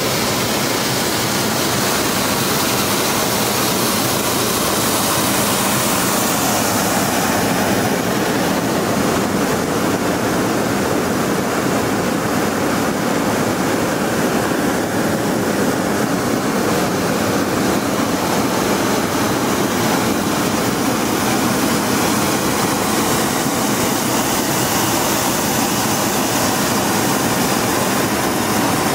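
Hot-air balloon propane burners firing in one long burn: a loud, steady roar of flame blasting up into the envelope to heat the air inside.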